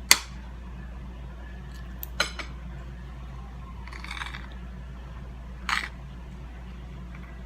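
Eating utensil clinking against a plate or dish three times, with a short softer scrape in the middle, over a steady low hum.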